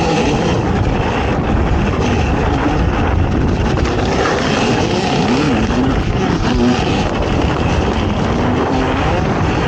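ATV engine revving up and down as it is ridden over the off-road track, with wind noise on the microphone.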